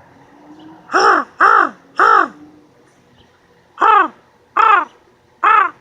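A man imitating a crow's caw with his voice: six loud, evenly pitched caws, each rising and falling, in two sets of three about half a second apart.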